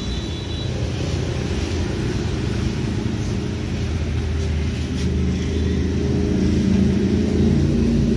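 A motorbike engine running with a steady low drone that grows louder in the last couple of seconds.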